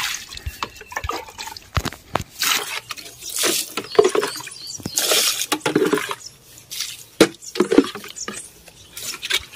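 Watery liquid poured from a plastic mug onto potted soil in short splashing pours, with the mug scooping more from a bowl between pours. A few light knocks in the first couple of seconds.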